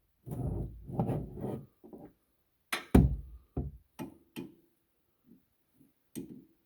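Handling sounds: rubbing and clatter, then a series of sharp knocks with gaps between them, the loudest about halfway through.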